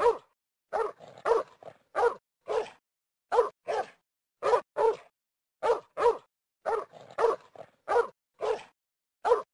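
A dog barking over and over, about two short barks a second, mostly in quick pairs.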